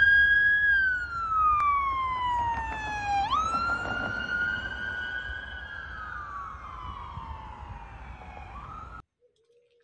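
Police car siren wailing: one tone gliding slowly down, jumping back up about three seconds in, then gliding down again as it grows fainter, over a low rumble. It cuts off abruptly about nine seconds in.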